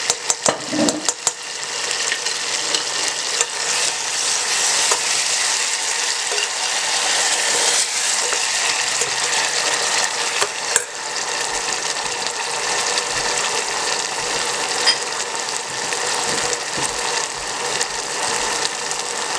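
Sesame-oil dipping sauce with garlic, ginger, hoisin, soy and oyster sauce sizzling steadily in a small stainless saucepan while a spoon stirs it, knocking against the pan a few times in the first second or so.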